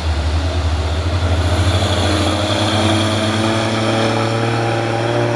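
Diesel engine of a loaded heavy cargo truck running close by as it moves past, its revs climbing steadily through the second half.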